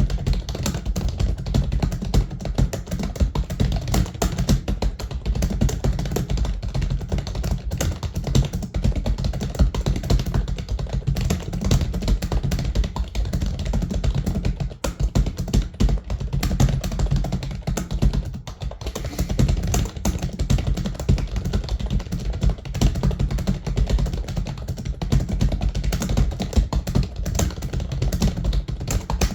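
Computer keyboard typed at speed, about a hundred words a minute: a rapid, continuous clatter of keystrokes with a couple of brief pauses about halfway through.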